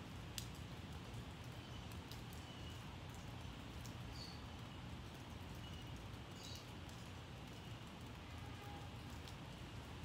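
Light rain: a faint steady hiss with scattered drips ticking, and short high bird chirps every second or two.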